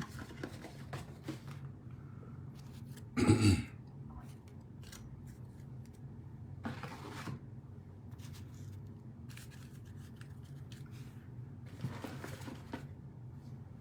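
Trading cards and plastic sleeves being handled and moved about on a tabletop: scattered light clicks and rustles, with one louder knock-and-rustle about three seconds in.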